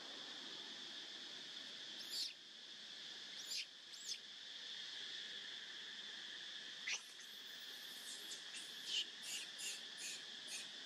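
Steady drone of insects, with a few short, high-pitched squeaks that fall in pitch, then a quick run of them in the last few seconds.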